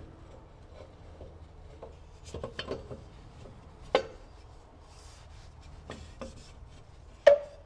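Electric PTO clutch of a riding mower being worked by hand up onto the engine crankshaft: scraping and rubbing of metal on the shaft, with scattered knocks, a few around two and a half and four seconds in and the loudest knock near the end.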